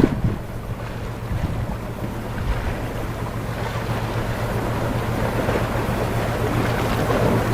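Steady wind and sea noise, with wind on the microphone and a constant low hum underneath, growing slowly louder.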